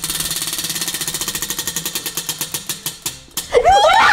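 A spinning prize wheel's pointer ticking against the pegs: a rapid clicking that slows steadily as the wheel runs down, stopping a little after three seconds in. Then children laugh and shout near the end.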